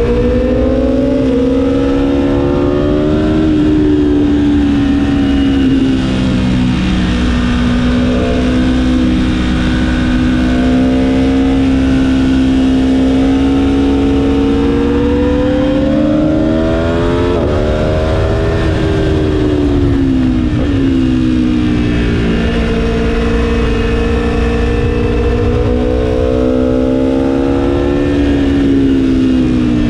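Aprilia Tuono V4 1100 motorcycle engine heard from the rider's seat, held in second gear: its pitch climbs for several seconds under throttle and falls as the throttle closes, twice falling sharply in the second half, over steady wind rush.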